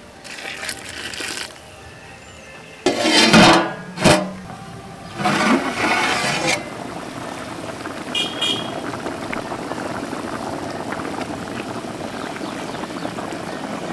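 Water being poured into a large aluminium pot of mutton curry in a few splashing bursts, with a sharp knock about four seconds in. From about seven seconds on, the curry boils steadily in the pot.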